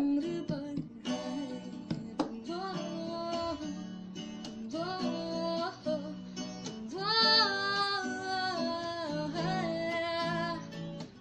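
A solo voice singing a Hindi song to a strummed acoustic guitar, with a loud, long held high note about seven seconds in.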